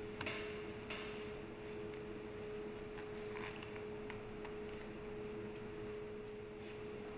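A steady, faint hum at a single pitch, with a few soft rustles and light taps as a paper tissue wipes the stainless-steel seal housing around the agitator shaft.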